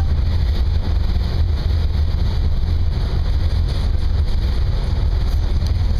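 Wind buffeting the microphone on the open deck of a moving ferry, a steady low rumble with a hiss over it.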